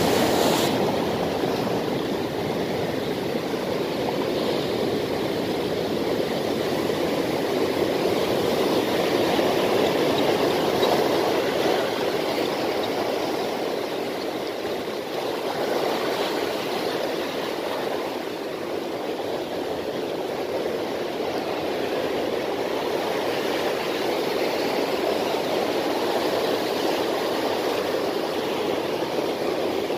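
Sea surf breaking and washing over a rocky beach: a continuous rushing that slowly swells and eases.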